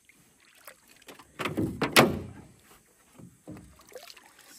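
Water splashing at the side of a metal boat as a large speckled peacock bass is held in the river and lifted, with a sharp knock against the hull about two seconds in, the loudest sound, and small knocks and drips around it.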